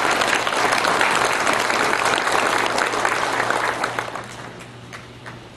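Audience applauding, many hands clapping together, fading away about four seconds in.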